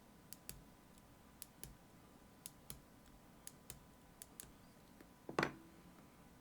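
Small sharp clicks of metal lock parts being handled while an Assa Guideline lock is taken apart: pairs of light clicks about once a second, then one louder knock near the end.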